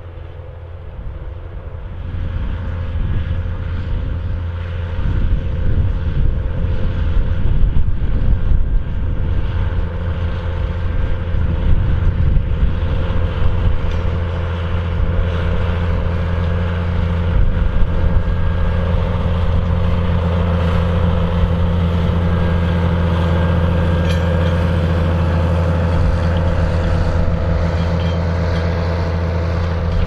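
John Deere 7820 tractor's six-cylinder diesel running steadily under heavy load while pulling an eight-furrow reversible plough through the soil. It grows louder over the first few seconds, then holds a steady low drone.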